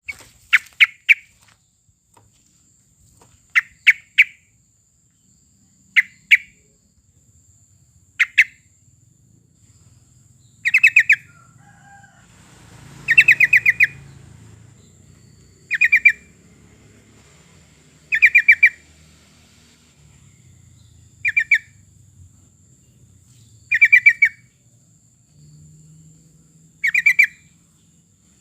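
Yellow-vented bulbul (trucukan) singing short, quick bubbling phrases, each under a second long and repeated every two to three seconds. A faint steady high-pitched tone runs underneath.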